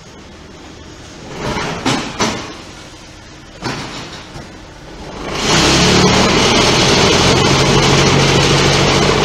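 QT6-15 automatic concrete block-making machine cycling: a few metal clanks, then about five seconds in the vibration motors start with a loud, steady hum as the mould is vibrated to compact the block mix.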